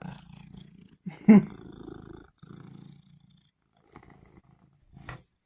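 Domestic cat purring steadily, with one short, louder cat call rising in pitch about a second and a half in; the purring fades out a little past halfway.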